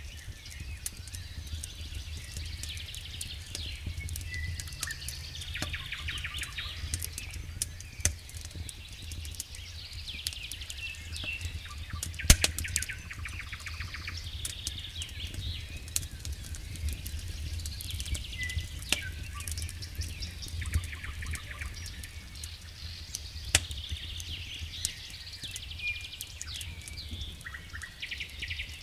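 Wood campfire crackling, with scattered sharp pops, the loudest about twelve seconds in, over a steady low hum. Birds sing repeated short trilling and whistled phrases every few seconds.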